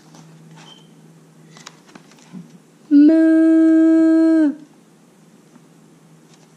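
A person's voice imitating a cow: one long, loud 'mmmoooo' moo, held at a steady pitch for about a second and a half in the middle. Before it come faint rustles of a book page being turned.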